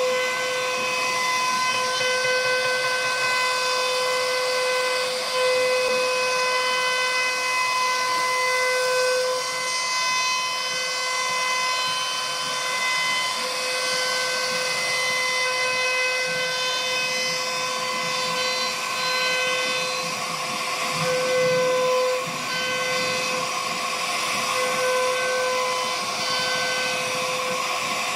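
CNC router spindle running at high speed while cutting wood: a steady high-pitched whine over a hiss, the tone swelling and fading as the bit moves through the cut.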